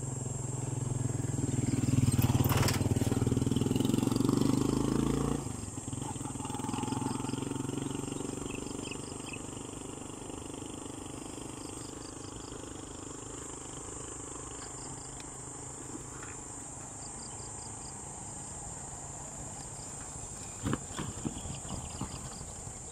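A motorcycle engine passes close by, loudest about two seconds in and cutting off suddenly about five seconds in, followed by a fainter engine that fades away over the next few seconds. Underneath, insects keep up a steady high buzz with short chirps repeated in threes.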